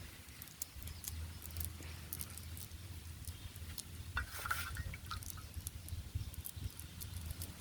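Light water patter and dripping with scattered small clicks, over a steady low rumble, and a brief louder splash-like event about halfway through.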